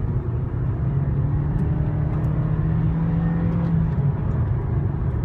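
Toyota Corolla driving, heard from inside the cabin: a steady low rumble of engine and road noise. A level engine drone holds from about a second in until about four seconds in.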